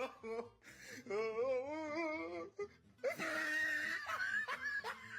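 Phone ringtone made from a comic voice recording: a last drawn-out 'no', then a wavering, wail-like vocal, then a higher, shrill vocal cry.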